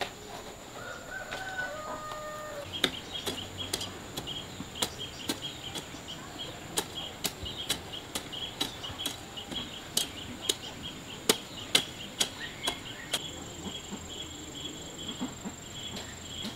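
A chicken clucks briefly near the start, over a steady high insect whine and rapid insect chirping that runs on from about three seconds in. Sharp irregular knocks, one or two a second, stand out as the loudest sounds.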